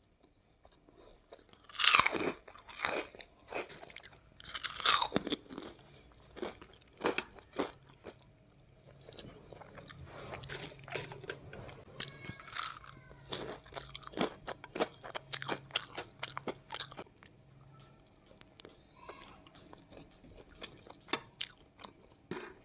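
Close-miked eating: a person chewing a mouthful of matar pulao and boondi raita, with two loud crunchy bites about 2 and 5 seconds in, then a long run of smaller crunches and wet mouth clicks.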